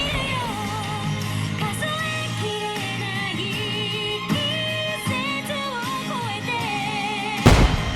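A pop song with a singing voice plays over a steady beat, and about seven and a half seconds in a loud boom cuts across it: a firework shell bursting.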